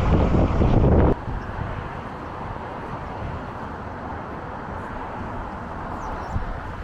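Strong wind buffeting the microphone, which cuts off abruptly about a second in to a quieter, steady outdoor rush of noise.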